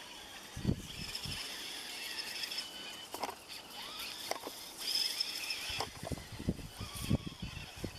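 Radio-controlled scale rock crawler scrambling over rocks: irregular knocks and scrapes of tyres and chassis on stone, over the high whine of its electric motor, with the knocks coming more often in the second half.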